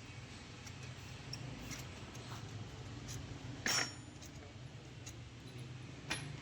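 Scattered light clicks and ticks over a low steady hum, with one sharper, louder click about three and a half seconds in and another near the end.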